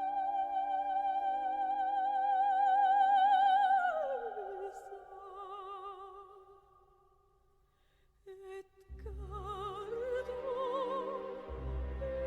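A soprano singing an operatic melody: a long high note with vibrato that slides down to a lower note and fades out midway, then a new sung phrase comes in over a low beat about nine seconds in.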